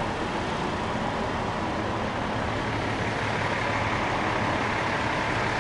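2020 Volvo VNL 860 semi truck running steadily: a constant low drone with an even hiss over it.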